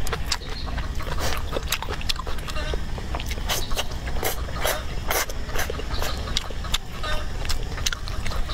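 Close-up mouth sounds of a person eating: steady chewing and lip smacking with many sharp, wet clicks, over a steady low rumble.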